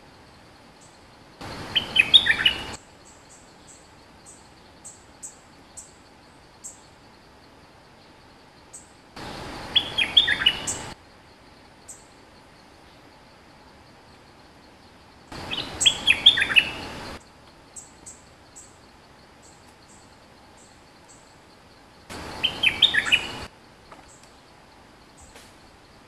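A caged bulbul (merbah lekir) sings short, quick bubbling phrases, four times at intervals of about seven seconds. Faint high chirps come in between.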